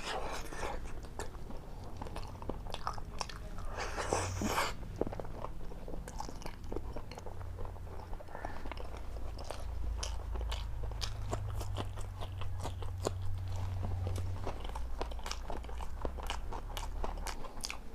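Close-miked chewing and biting: many quick wet mouth clicks and crunches, over a steady low hum.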